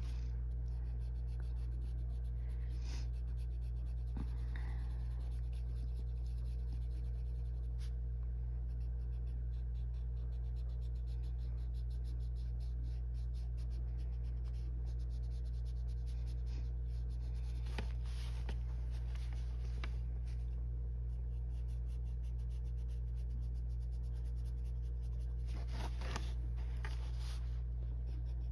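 Arteza colored pencil scratching across coloring-book paper in rapid short shading strokes, over a steady low hum.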